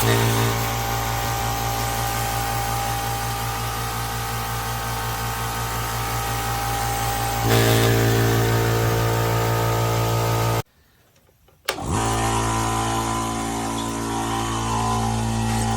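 Nessxa oil-free 1.5 hp air compressor running with a steady low hum, a length of rubber tubing pushed into its intake muffler to quieten it. It gets a little louder about halfway through, breaks off for about a second about two-thirds of the way in, then carries on.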